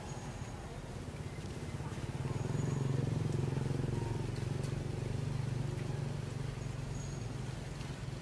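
Low hum of a motor engine running, swelling over a couple of seconds and easing off again, with a few faint short high chirps.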